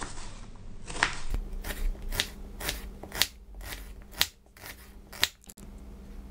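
Knife slicing an onion into half-rings on a wooden cutting board: about ten cuts, roughly two a second, each one a sharp tap of the blade on the board, stopping about five and a half seconds in.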